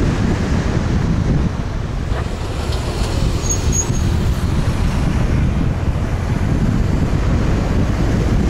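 Steady wind buffeting on an action camera's microphone mounted on a moving car, with low road and tyre rumble.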